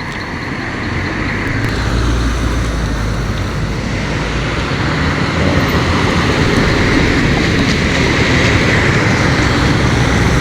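Road traffic: a motor vehicle's engine drone and road noise, growing louder over the first couple of seconds and then holding steady.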